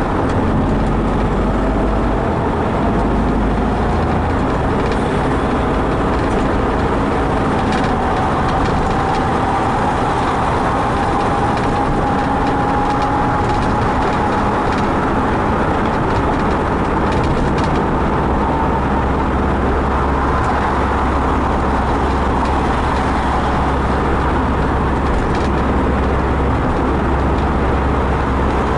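Car driving at highway speed: steady engine and road noise, with a faint whine that slowly rises in pitch through the first two-thirds.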